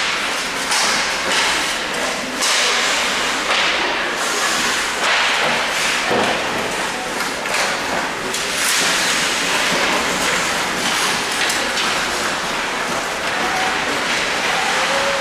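Ice hockey play up close: skate blades scraping and cutting the ice, with repeated knocks and thuds from sticks, puck and bodies against the ice, boards and glass. The first sharp knock comes right at the start.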